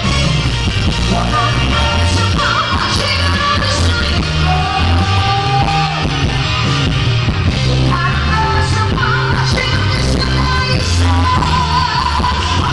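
A woman singing a Korean pop song with held notes over loud band backing with a steady beat.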